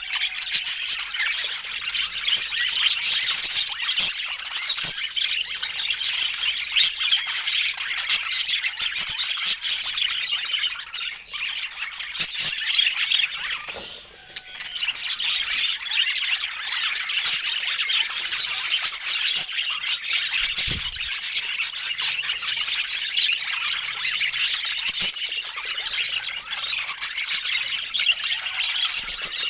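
Budgerigars chattering and squawking continuously in a busy, high-pitched stream, briefly quieter about halfway through.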